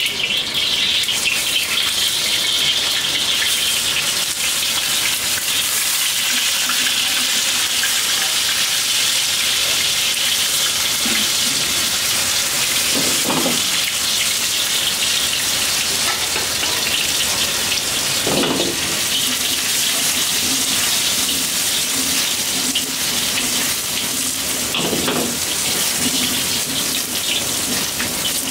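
Gyoza dumplings sizzling in hot oil in a black iron wok, a loud steady hiss as more dumplings are laid in.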